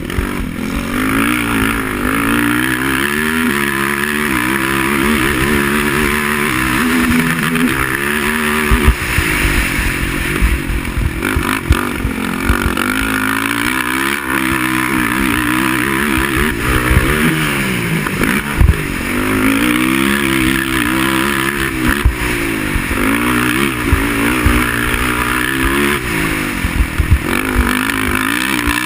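Racing quad engine revving hard and easing off over and over, its pitch climbing and dropping with throttle and gear changes as it is ridden around a race track, with frequent low thumps and clatter from the machine over rough ground.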